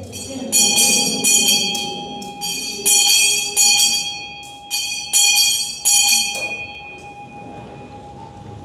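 Altar bells rung in a series of shakes, each ring sudden and bright and left to die away, fading out after about seven seconds. They mark the elevation of the chalice after the consecration at Mass.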